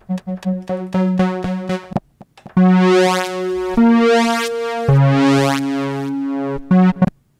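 Modal Electronics Cobalt5S synthesizer being played through one of its factory presets. First comes a quick run of short repeated notes for about two seconds. Then come held chords that change twice, ending with a short stab.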